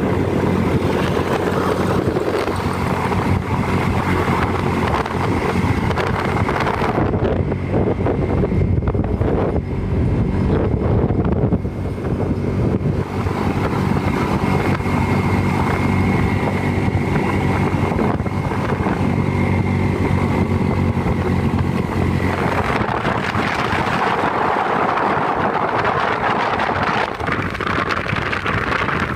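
Motorcycle engine running as it is ridden, with wind buffeting the microphone. About three-quarters of the way through, the engine's low hum fades and a broader hiss takes over.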